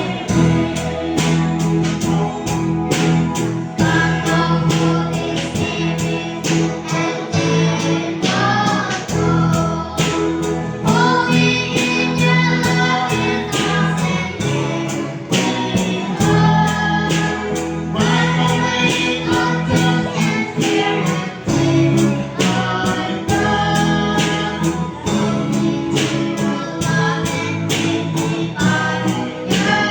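Christian worship song: sung vocals over guitar and other instruments, with a steady beat.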